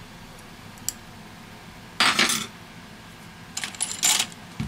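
Small metal tools and parts clinking during phone reassembly: a faint tick, one loud clatter about two seconds in, then a quick run of sharp clicks near the end.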